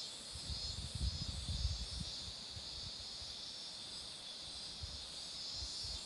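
A chorus of cicadas droning steadily and high-pitched from the trees, with a few low rumbles in the first two seconds.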